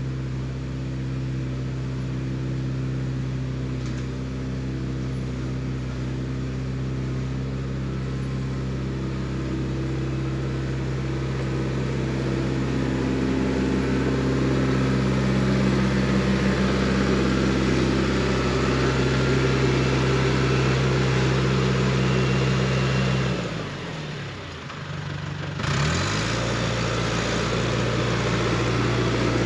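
Diesel engine of a piece of heavy construction equipment running steadily, working harder from about halfway through. Near the end the engine note dips sharply for a couple of seconds and then comes back.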